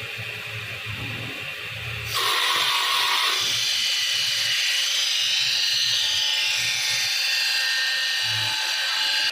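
High-speed power grinder working a steel knife blade. About two seconds in it starts a loud, high whine whose pitch wavers up and down as the blade is worked, then it cuts off suddenly at the end.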